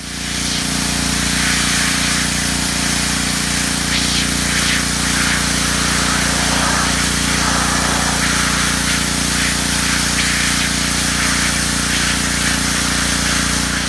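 Gas-engine pressure washer running steadily, its water jet hissing as it blasts dirt off a hard plastic playhouse panel.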